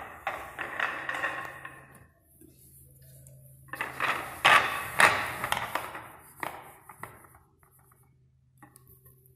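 Pool balls clacking against each other and the wooden triangle rack as they are packed together for a break: a quick rattle of clicks over the first two seconds, then a few louder sharp knocks in the middle and two more a little later.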